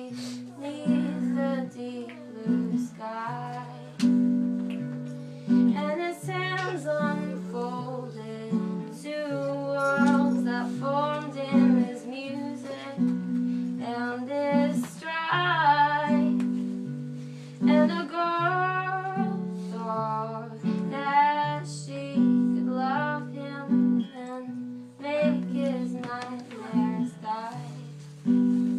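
Live song performance: a singer with acoustic guitar, the guitar moving between low notes under a sung melody.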